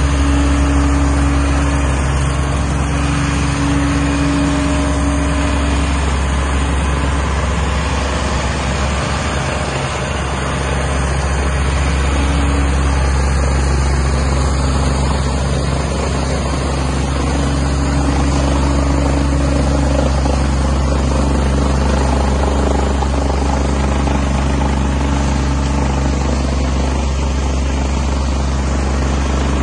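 EvoQuip Colt 800 tracked mobile screener's diesel engine running steadily as the machine moves on its tracks, with a deep, even hum and a higher hum that comes and goes.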